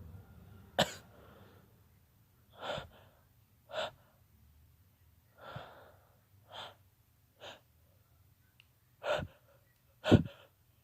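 A man stifling sneezes: a run of about eight short, sharp breathy bursts and gasping intakes of breath, the sharpest about a second in and the loudest near the end.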